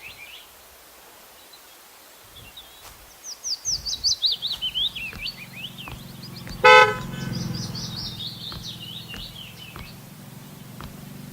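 Street ambience: a bird chirping in quick falling runs, a low steady hum of car engines or traffic that comes in about four seconds in, and one short, loud car horn honk midway.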